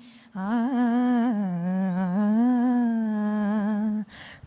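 A solo voice singing a slow Malayalam prayer song, drawing out one long ornamented phrase that wavers and glides in pitch. There is a short pause near the end.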